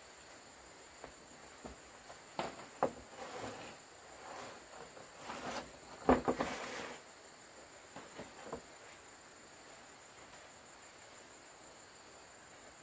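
Knocks and clatters of bamboo poles being handled on a bamboo fence, irregular between about two and nine seconds in and loudest about six seconds in. A steady high chirring of insects runs underneath.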